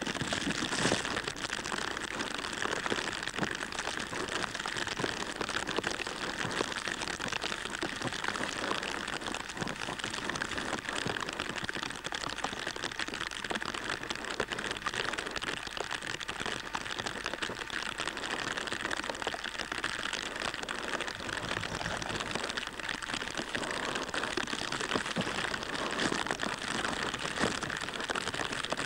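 Steady rain falling, a dense hiss of fine crackles with no change in strength.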